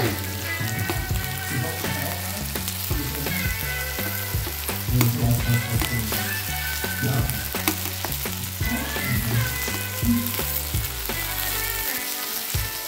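Shrimp, fish and zucchini slices sizzling steadily in oil on a hot raclette grill plate.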